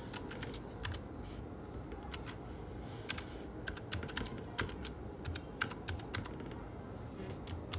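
Typing on a computer keyboard: irregularly spaced key clicks, some in quick runs and some with short pauses between them.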